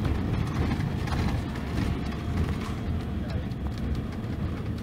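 Rear-mounted diesel engine of a Mercedes-Benz OC-500RF-1842 coach running steadily with a deep, even rumble.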